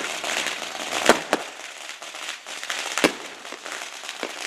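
Aerial fireworks bursting: two sharp bangs close together about a second in and another about three seconds in, with crackling and smaller pops between.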